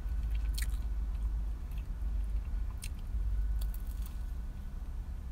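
Close-up chewing and biting into a toasted ham and cheese sandwich, with a few sharp crunches of the toasted bread, one about half a second in and a cluster around three to four seconds in. A steady low hum runs underneath.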